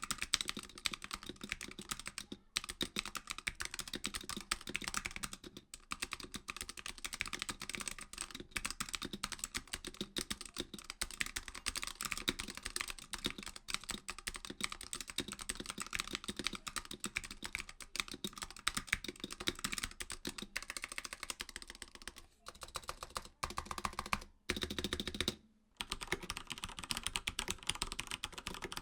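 Mechanical keyboard with linear switches being typed on fast, a dense unbroken patter of keystrokes, broken by a few short pauses near the end.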